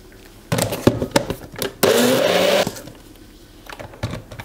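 Personal blender motor running loudly for under a second while blending a green smoothie, then cutting off abruptly. Before it come plastic clicks and knocks as the cup is set onto the motor base, and a few more clicks near the end as it is lifted off.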